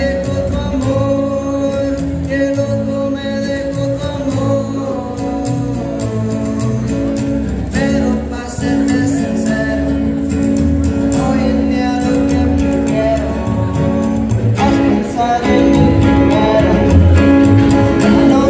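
Live acoustic guitar and upright bass playing a Spanish-language song, with a voice singing. The music grows louder about three-quarters of the way through.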